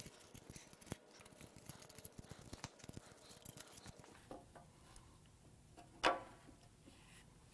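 Faint metallic clicks and scrapes of loose cam caps and camshafts being handled on a Toyota 2UZ-FE V8's cylinder head, with one louder metal clink that rings briefly about six seconds in.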